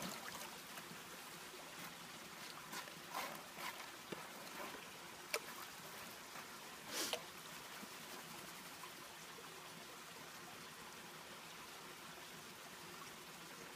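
Water swishing and splashing in a plastic gold pan as it is swirled and dipped in a creek to wash off gravel, with a few short splashes in the first half. After that only a faint, steady trickle of water remains.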